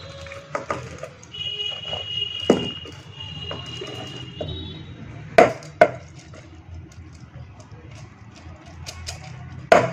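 Chopped vegetables and washed lentils tipped from a bowl into a pressure cooker, pattering in, with a spoon scraping and knocking on the bowl: a sharp knock about two and a half seconds in, two more close together a little past halfway, and another at the end.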